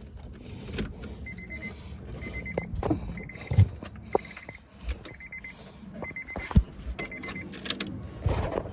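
A Honda Accord's dashboard warning chime beeping about once a second, seven short high beeps, with scattered clicks and knocks from inside the car as the starting attempt is readied.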